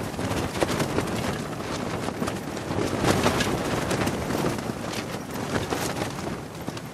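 Cloth flapping in gusty wind: a rush of wind with irregular fluttering snaps, swelling and easing with the gusts, strongest about halfway through.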